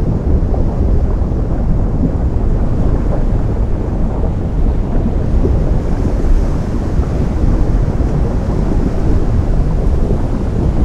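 Ocean surf meeting flowing lava: a loud, continuous deep rumble with a rough, crackling texture, steady throughout with no separate impacts.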